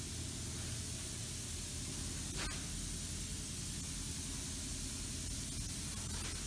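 Paint spray booth's ventilation fans running: a steady hiss of moving air over a low hum, with one sharp click about two and a half seconds in.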